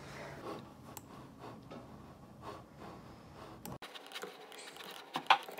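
Soft, irregular clicks and taps of typing on a computer keyboard and clicking a mouse, with one sharp, louder knock about five seconds in.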